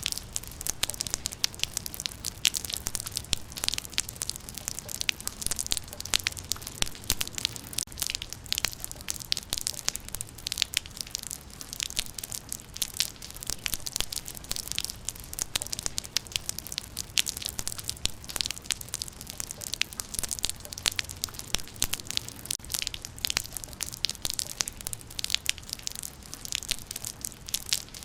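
Rain falling, heard as a dense, irregular patter of drops striking close by, over a steady low rumble.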